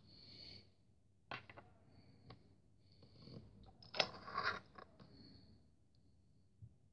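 Clear plastic wrapping on a model airliner crinkling and rustling as hands work it off, with a few small clicks and taps; the loudest rustle comes about four seconds in.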